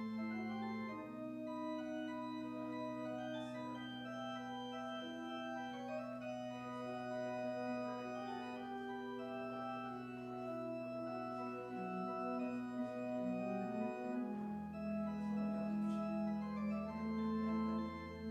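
Organ music: slow, sustained chords over long-held bass notes, the bass moving lower about fourteen seconds in.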